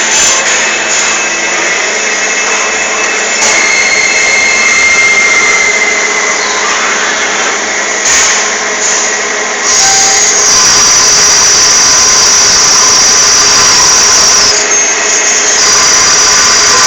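CNC machine running: loud, steady machine noise with high whining tones. The whine steps up and changes pitch about three seconds in, again a little past halfway, and once more near the end.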